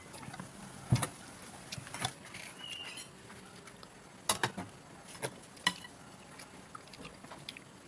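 Scattered sharp clinks and knocks of a rice paddle and a spoon against a metal bowl and plates while serving and eating rice. The loudest come about a second in and about four seconds in, with a few lighter ones between.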